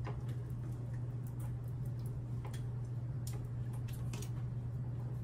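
Scattered light clicks and ticks, about one or two a second, from hands working the hair while curling it, over a steady low hum.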